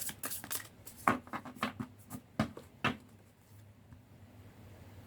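Light Seers Tarot cards being shuffled by hand, with a few sharper knocks of the deck between about one and three seconds in, then the handling stops.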